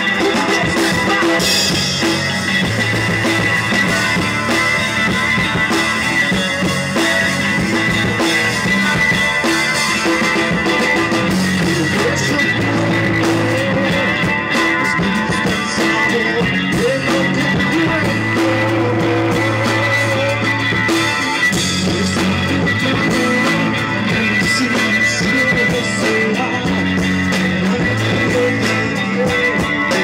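A rock band playing live, with electric guitars, bass guitar and a drum kit, loud and continuous.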